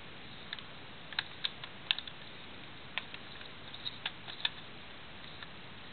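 Irregular series of sharp small clicks from a post office mailbox door's three-digit combination lock as its dial is turned back and forth, about a dozen between half a second and four and a half seconds in.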